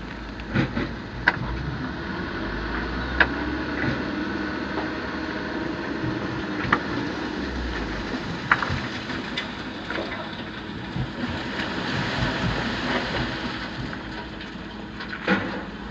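Heavy diesel engines of an excavator and a loaded dump truck working hard together, a steady rumbling din with sharp knocks every few seconds.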